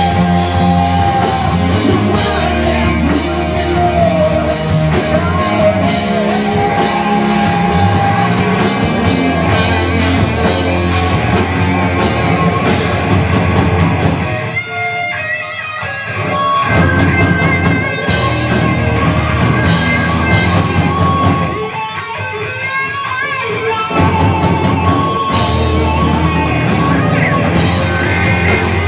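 Rock band playing live at full volume: electric guitars over bass and drum kit. Twice, about halfway through and again about three-quarters of the way through, the bass and drums drop out briefly and a guitar line carries on alone before the full band comes back in.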